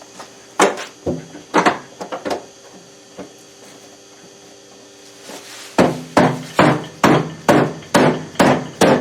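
A basketball being dribbled, a few scattered bounces and then a steady run of bounces a little over two a second, each with a short low ring.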